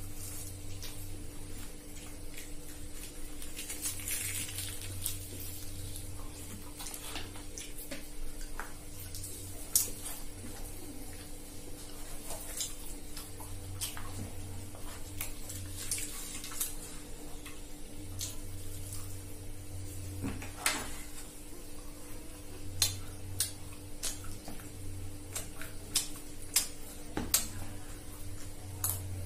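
Spoons clinking and scraping against small bowls and plates as two people eat, with sharp clicks scattered throughout and most frequent near the end. A steady low hum runs underneath.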